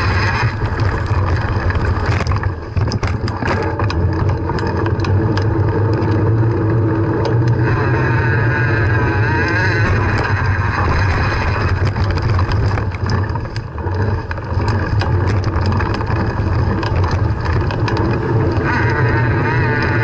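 Bicycle riding noise picked up by a bike-mounted camera: a steady low drone with frequent sharp clicks and rattles as the bike bumps over rough grass.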